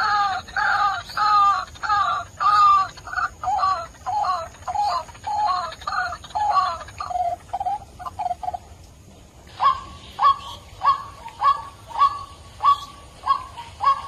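White-breasted waterhen calls played as a hunting lure: a fast run of repeated croaking two-part notes, about two a second, for most of the first nine seconds. After a brief pause comes a run of sharper, evenly spaced single call notes.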